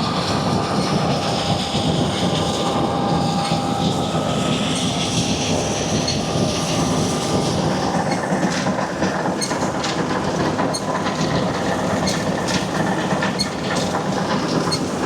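Combine harvester running as it starts cutting wheat: a steady mechanical noise of engine and machinery with a few steady whining tones, and light ticks through the second half.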